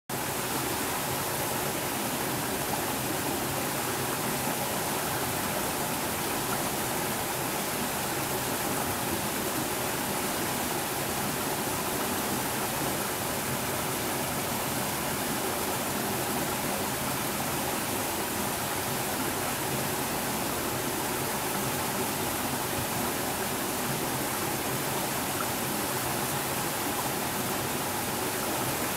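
Small mountain stream spilling over a low rocky cascade into a pool: a steady rush and babble of flowing water.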